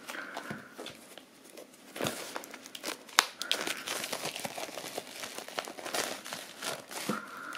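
Clear plastic film crinkling and crackling as it is pulled off a hardcover mediabook, with a sharp click about three seconds in.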